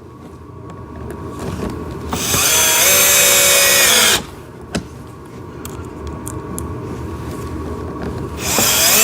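Power drill-driver driving small screws: the motor winds up and runs steadily for about two seconds, cuts off, and starts again near the end.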